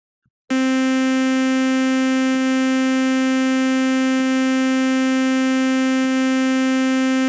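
FL Studio's Harmless software synthesizer sounding one steady, unchanging note, starting about half a second in, while a preset is auditioned. A faint click recurs about every two seconds.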